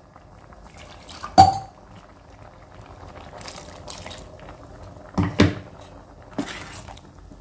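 A metal spoon stirs a thick, bubbling curry in a pan and knocks against the pan once sharply about a second and a half in, then twice more near five seconds. A faint bubbling of the simmering liquid runs underneath.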